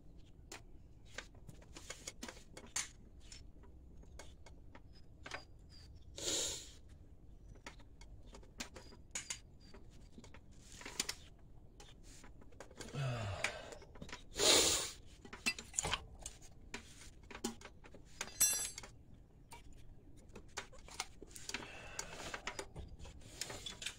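Scattered clicks and metallic clinks of hand tools and a brake caliper being handled, with a few louder scraping rustles, the loudest about fourteen and a half seconds in.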